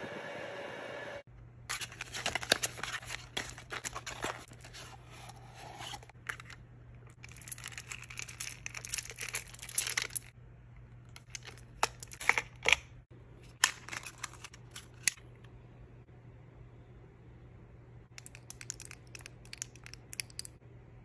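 Hands unboxing small products: packaging crinkling and rustling, with sharp clicks and taps, in several bursts with pauses between them, over a low steady hum. For about the first second a small handheld fan runs with a steady whir before it cuts off.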